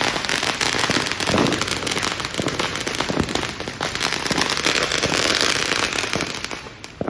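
Firecrackers going off in a long, dense string of rapid crackling pops that dies away near the end.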